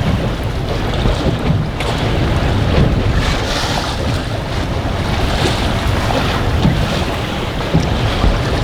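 Strong, gusty wind buffeting the microphone, with waves splashing against a boat's hull.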